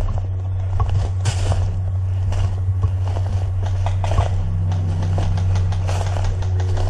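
Footsteps crunching and rustling through dry leaf litter at a walking pace, with a steady low hum underneath.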